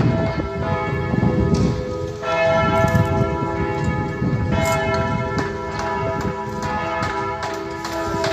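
Church bells ringing, struck afresh about every two and a half seconds, each stroke ringing on into the next. A low rumbling noise runs underneath, strongest in the first half.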